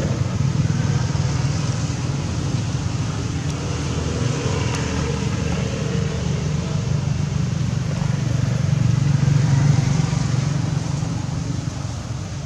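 Low, steady rumble of a motor vehicle engine running close by, swelling about nine seconds in and easing near the end.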